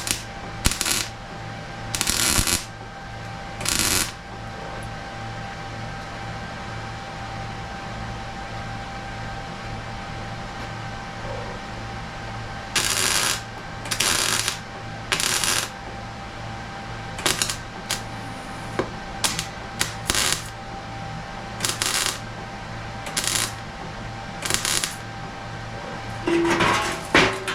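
Metal fabrication work: a steady hum runs throughout, broken by about a dozen short, sharp bursts of hissing noise, each under a second long and spaced irregularly.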